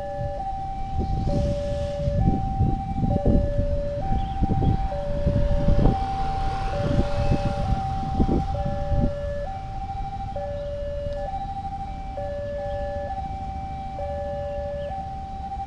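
Indonesian railway level-crossing warning siren sounding while the barrier is down: an electronic two-tone alarm that switches between a higher and a lower note about once a second. A loud, uneven low rumble runs under it through roughly the first nine seconds, then eases.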